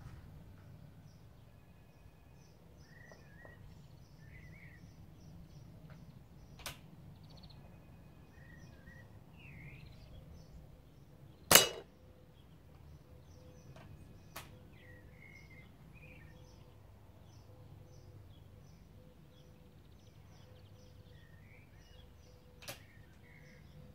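Walther LGU Varmint spring-piston air rifle shooting 4.5 mm pellets at tin-can targets: one loud sharp crack about halfway through and three faint cracks, one before it and two after. Birds chirp throughout.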